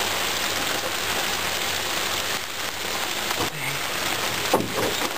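Steady heavy rain falling on the water, with one short sharp sound about four and a half seconds in.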